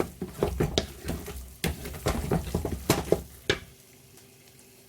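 Utensil clinking and knocking against a cooking pot as the soup is stirred, a quick run of sharp taps that stops about three and a half seconds in, leaving only a faint steady hum.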